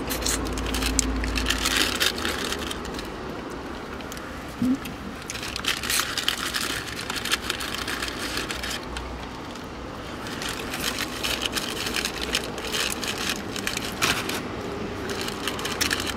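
Crinkling and rustling of fast-food wrapping paper and a sauce packet being handled, in irregular bursts throughout. A low rumble lies under the first two seconds.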